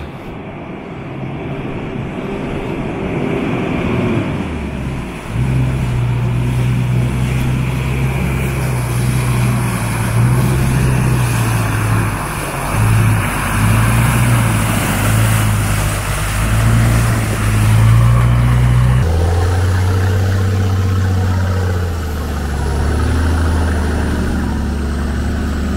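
Off-road SUV engine, a Mitsubishi Pajero, labouring through deep mud ruts, its revs rising and falling as it comes closer. About two-thirds of the way in, this changes to a steadier, lower engine drone heard from on board another 4x4.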